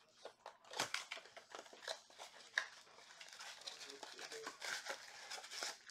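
Cardboard trading-card box (Panini Mosaic football) being opened by hand: a run of irregular scrapes, clicks and rustles as the flap is pulled open and the foil card packs are worked out.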